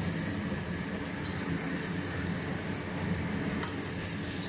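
Minced garlic sizzling steadily in hot oil in a nonstick wok.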